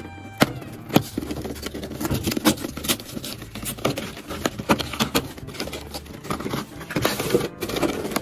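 A cardboard toy box being torn open by hand: glued flaps ripping, paper tearing and crackling, with many sharp clicks and scrapes. Near the end, the plastic packaging tray is slid out of the box.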